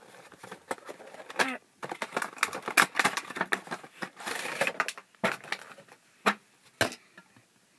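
Funko Pop cardboard box and its plastic insert being opened by hand: crackling and rustling with many quick clicks and taps, then two separate sharp knocks near the end.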